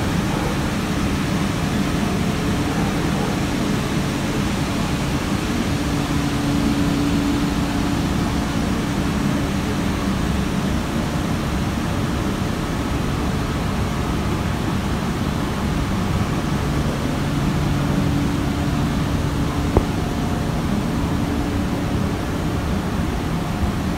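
Steady drone and hiss of grain-handling machinery running, feeding grain out of an overhead spout onto a heap, with a low hum that fades in and out. A single sharp click comes about 20 seconds in.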